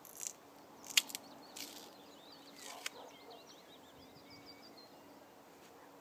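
Faint songbird warbling in the background, with a few sharp clicks and taps from a knife being handled in the hands; the loudest click comes about a second in.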